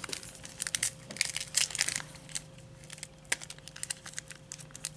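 Crinkling and rustling of trading-card pack wrappers and cards being handled. There is a run of short crackles in the first two seconds, quieter after, and one sharp click about three seconds in.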